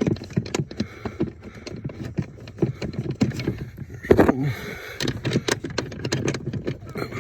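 Irregular clicks, knocks and light rattles of a truck's brake pedal assembly and its mounting screws being handled and fitted by hand under the dash. A louder knock comes about four seconds in.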